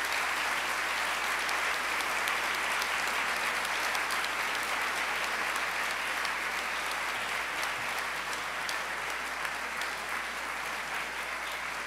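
Congregation applauding, a steady round of hand clapping that eases off a little near the end.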